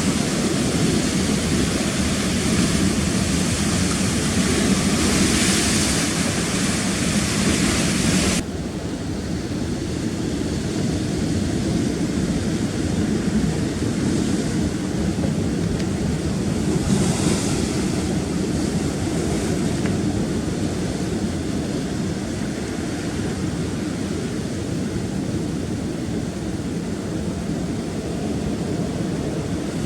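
Rough sea surf washing and breaking continuously, a steady rushing noise with swells that rise and fall. The bright hiss drops off suddenly about eight seconds in, leaving a duller wash.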